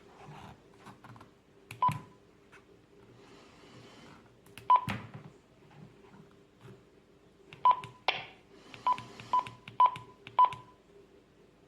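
Keypad beeps from a Retevis RA79 handheld radio: short single-pitch beeps, each with a button click, as keys are pressed. The first few are seconds apart, then five come in quick succession near the end. Soft hiss comes and goes between them.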